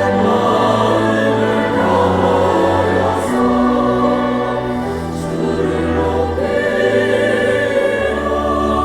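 Church choir singing in slow, held chords over a low sustained bass.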